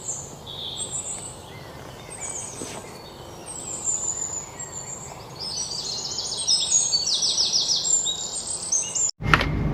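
Songbirds chirping and singing, with several fast trilled phrases in the second half.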